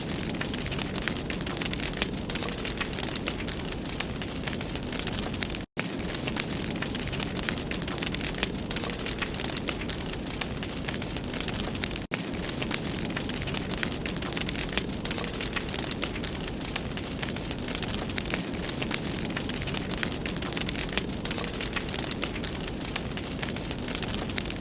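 Wood fire in a fireplace crackling and popping steadily, dense sharp snaps over a low rushing burn. The sound cuts out for an instant about six seconds in, and dips briefly again at about twelve seconds.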